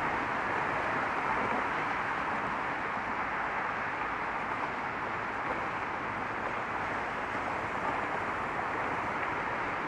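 Steady traffic noise from a continuous stream of cars on a road, an even hum in which no single vehicle stands out.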